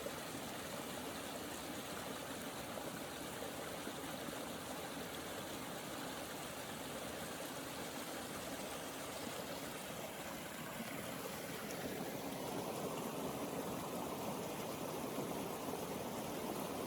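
Springtime creek flowing, a steady rush of water over rocks that grows a little fuller and deeper about three quarters of the way through.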